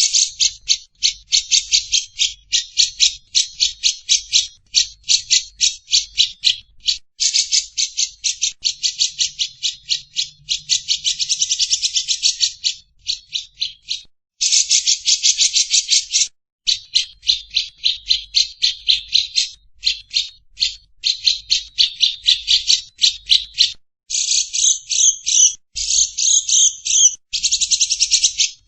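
A bird calling in fast dry rattling trills of rapidly repeated notes, in bouts broken by short pauses, with a few denser, buzzier bursts near the end.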